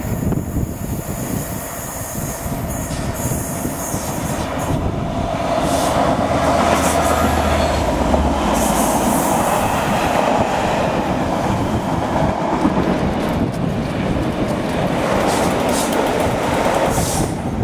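A Class 67 diesel-hauled passenger train passing close by: a steady rumble of coach wheels on the rails with clickety-clack over the joints. It grows louder about six seconds in as the coaches run past.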